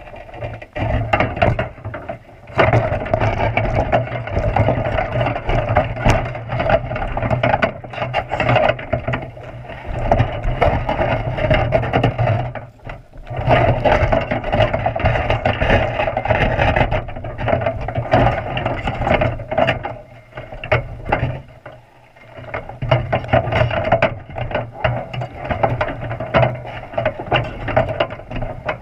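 Underwater sound picked up by a camera in its waterproof housing inside a crab trap: continuous muffled rattling, knocking and scraping as the trap and its wire bait holder are jostled by a sea lion tugging at the salmon-head bait, with two brief lulls.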